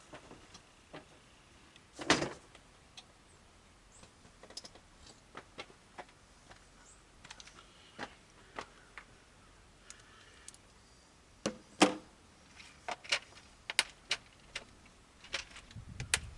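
Scattered clicks, clinks and knocks of hand tools and small parts being picked up and set down, with a louder clunk about two seconds in and another near twelve seconds. No engine is running.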